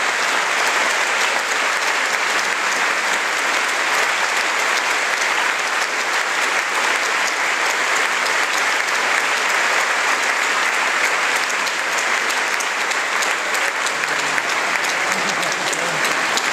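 An audience applauding: many hands clapping in a dense, steady patter that neither builds nor fades.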